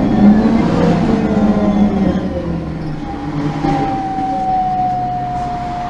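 MAN NG 273 M18 articulated city bus with an LPG engine and Voith automatic gearbox, heard from on board. The engine note drops in pitch, and about three seconds in a steady whine comes in, sinking slowly.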